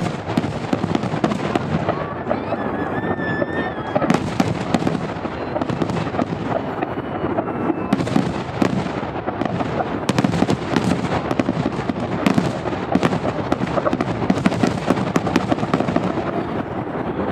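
Fireworks display: a dense, continuous barrage of aerial shells bursting, with rapid crackling and bangs layered over a steady rumble, heaviest in several surges.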